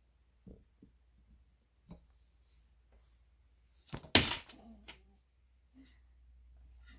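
Handling knocks from a canvas and a metal tripod easel: a few light taps, then one loud clatter about four seconds in, followed by a few smaller knocks.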